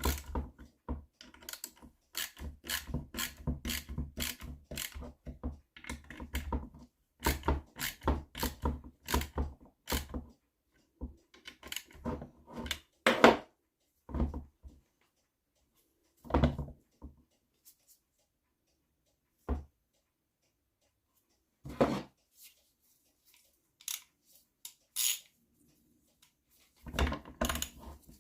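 Ratchet wrench clicking in quick runs while the clutch spring compressor tool is screwed down on an NSU Quickly engine. In the second half it gives way to a few scattered metal knocks and clunks.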